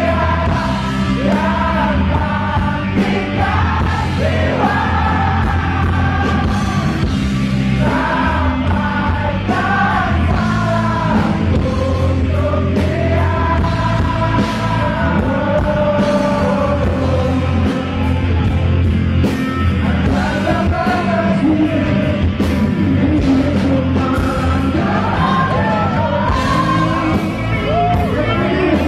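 Live rock band playing loudly, with electric guitar, bass and drums under a lead melody line that bends and slides.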